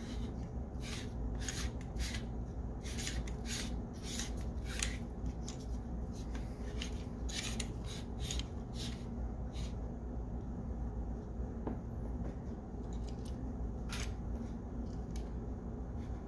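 Handling noise from an AR-15's polymer buttstock and small parts being turned over and worked on by hand: a run of short plastic-and-metal clicks, taps and rubs. They come thick and fast for the first half and more sparsely later, over a steady low hum.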